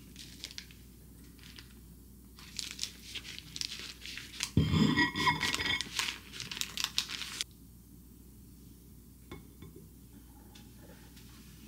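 Baking paper crinkling as a paper-wrapped tortilla wrap is handled and cut in half, loudest and busiest in the middle, then a few light clicks as the halves and tomato slices are set down.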